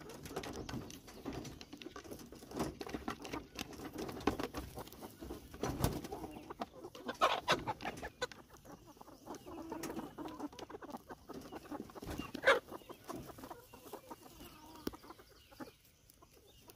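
A flock of chickens clucking as they leave the coop, with many short clicks and scrabbles. There are a couple of louder brief sounds about seven and twelve seconds in, and it quiets down near the end.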